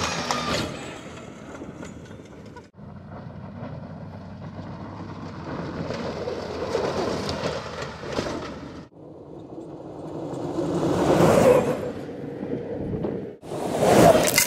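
All-electric off-road race buggy with twin 9-inch DC motors driving hard over desert dirt and sand, its tyres and flung gravel rushing. It comes in several short clips that change abruptly. The sound swells as the buggy passes close, loudest near the end as it goes right by.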